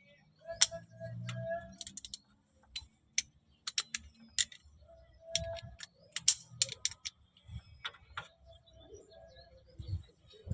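Scattered metallic clicks and clinks of hand tools, a socket and wrench being handled, some with a short ringing note.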